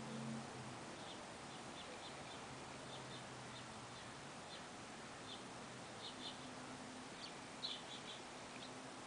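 Faint bird chirping: short high chirps scattered irregularly, coming more often and loudest near the end, over a low hum that comes and goes.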